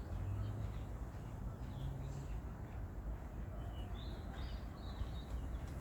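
Small songbirds chirping in short, scattered calls, a few early and a cluster about four seconds in, over a steady low rumble, with a low hum during the first two seconds.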